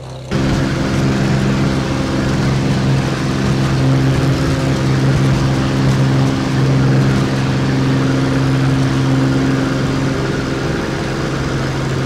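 A loud engine running steadily at a fixed speed, with a deep, even drone over a broad rushing noise. It cuts in abruptly just after the start.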